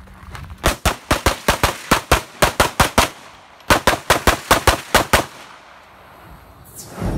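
Pistol fired in two fast strings, several shots a second, with a brief pause of about half a second between the strings while the shooter moves to the next targets. Near the end a short rush of low noise follows.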